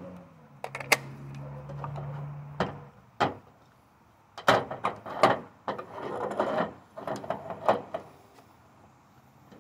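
Handling sounds of metal parts: clicks, knocks and rattles as a cordless angle grinder and a length of metal tubing are picked up and positioned for cutting. There is a low steady hum for about two seconds near the start, and a busier run of clatter from about halfway to near the end. The grinder is not yet cutting.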